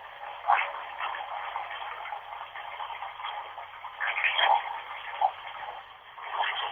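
Running bathwater heard as a steady hiss cut off above and below the mid range, like a radio or phone signal, with a few brief louder patches about half a second in, around four seconds in, and near the end.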